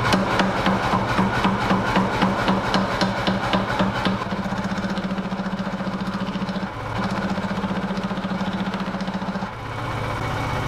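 Power hammer drawing down a round steel bar: about three heavy blows a second for the first four seconds, then the hammer running in a faster, steady rhythm that breaks off briefly twice.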